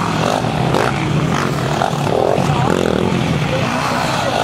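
Racing quad (ATV) engines revving up and down as several quads ride past on a dirt track, their pitch rising and falling with each change of throttle.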